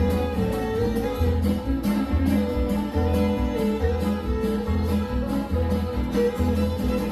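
Acoustic string-band jam: a fiddle plays the melody over strummed acoustic guitars, with an upright bass plucking a steady beat underneath.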